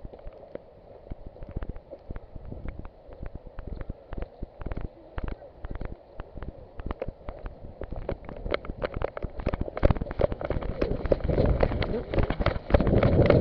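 Footsteps with rustling and crackling of clothing and dry vegetation, growing louder and quicker over the last few seconds as the pace picks up.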